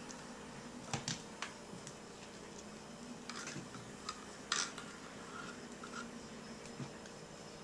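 A quiet room with a steady low hum, broken by a handful of short sharp clicks and taps: a few around one second in, a brief rustle about three and a half seconds in, and the loudest click about four and a half seconds in.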